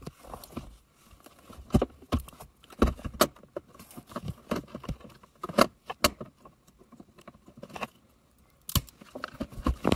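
Irregular clicks, taps and light rattles of plastic connectors and wiring being handled as the start button is plugged into the wiring harness, with a brief quiet pause shortly before the end.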